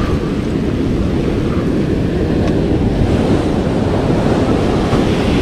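Strong ocean surf breaking and washing up the beach: a steady, loud rush of water.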